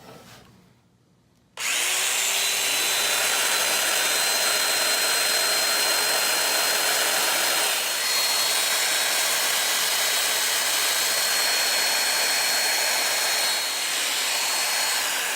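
Festool Domino joiner starting up about a second and a half in and running steadily with a high whine while plunge-cutting mortises in a wooden sawhorse leg.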